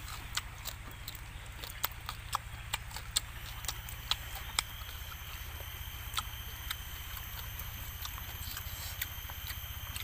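A person biting and chewing a small roasted sparrow, with sharp, irregular crunches of its bones over a steady low hum. About three seconds in, a steady high-pitched drone joins and holds.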